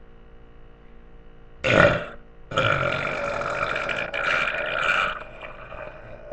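A person burping: a short, loud burp about one and a half seconds in, then a long drawn-out burp lasting about two and a half seconds.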